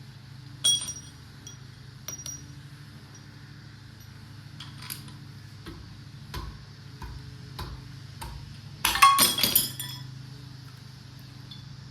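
Metal clinks from hand tools and engine parts while main bearing caps are taken off a 6.5 turbo diesel block: one sharp clink about a second in, a few light taps, then a quick clatter of metal near the end. A steady low hum runs underneath.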